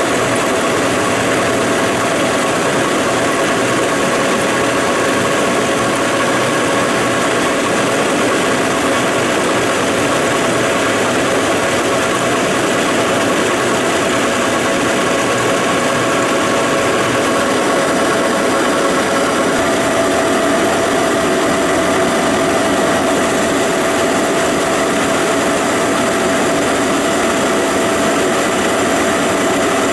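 Large Monarch engine lathe running steadily under power with a pulley spinning in its chuck: a constant mechanical drone with a few held tones from the motor and gear drive.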